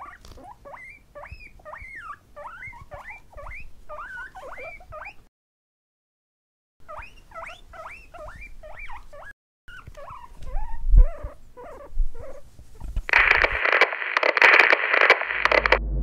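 Guinea pigs squeaking in quick runs of short calls that bend up and down in pitch, two or three a second, with a couple of low bumps. About three seconds before the end comes a louder noisy rush, and music starts just at the end.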